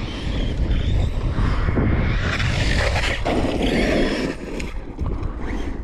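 Traxxas Sledge RC monster truck driven hard on dirt: its electric motor whines and swells as the throttle comes on and off, over tyres and gravel on loose dirt, with a heavy low rumble of wind on the microphone.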